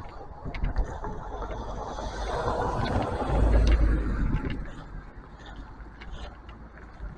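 A vehicle passing by, its rushing noise swelling to a peak about halfway through and fading away over roughly three seconds, with small clicks and handling noise throughout.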